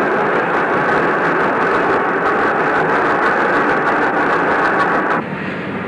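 Steam rack locomotive B 2503 pulling away under steam, a steady hiss and running noise. It drops suddenly in level about five seconds in.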